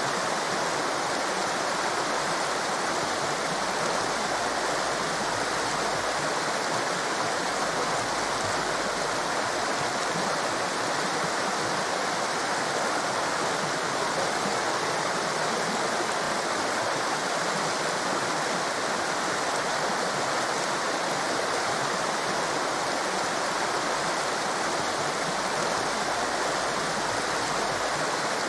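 A torrent of water rushing, a steady, even white-noise roar with no change or break.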